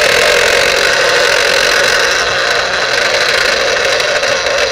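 Electric citrus juicer's motor running with a loud, steady whir while the reamer cone is pressed down and fails to turn. This is the sign of the drive gears having moved apart on a shaft bent by years of pressure.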